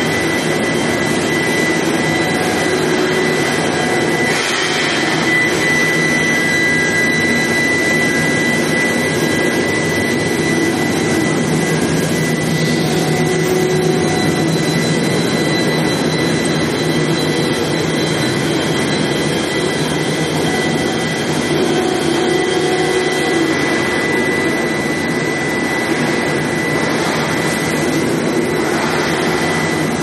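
Drill-pipe induction hardening and tempering line running: steady industrial machine noise with a constant high-pitched whine over a rumble.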